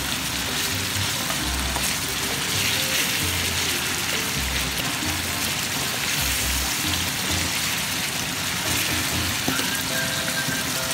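Chicken livers, onions and garlic sizzling steadily in olive oil in a frying pan, with background music underneath.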